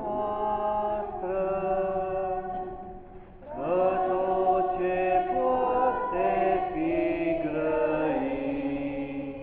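A group of young women's voices singing a hymn together in sustained notes, pausing briefly about three seconds in before the next phrase begins.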